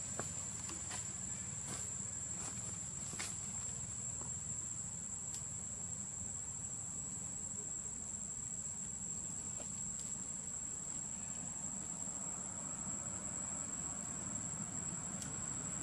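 Steady high-pitched drone of insects over a low rumble, with a few faint clicks in the first few seconds.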